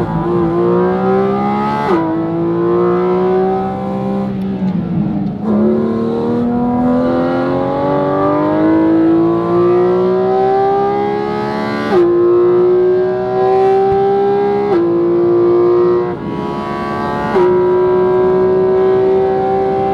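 Porsche 718 Cayman GT4 RS's naturally aspirated flat-six at high revs, heard from inside the cabin on track: the note climbs in pitch under full throttle, broken by quick gear changes. It backs off briefly about five seconds in, then winds up again in one long climb.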